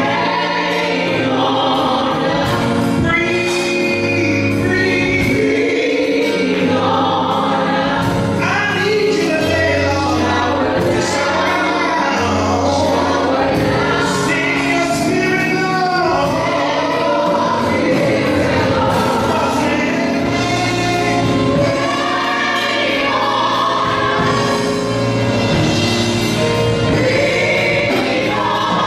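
Live gospel praise singing: a group of women's voices singing together into microphones, backed by keyboard and drum kit.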